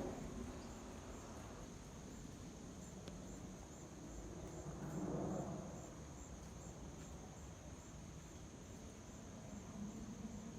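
Crickets trilling in a steady high-pitched chorus, over a faint low rumble that swells briefly about halfway through.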